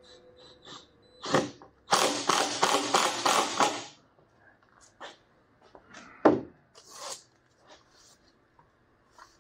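Hand work on an LED strip light screwed to a camper's aluminium skin: scattered clicks and taps, a harsh rattling noise for nearly two seconds about two seconds in, and a single sharp knock a little past six seconds in.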